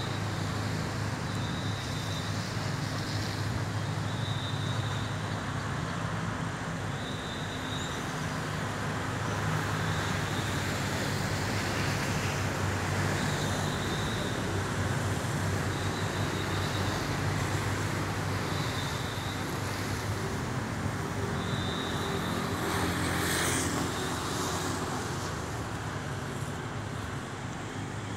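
Steady road traffic noise with a low engine hum underneath, and a short high-pitched tone repeating every two seconds or so. A vehicle passes a little louder near the end.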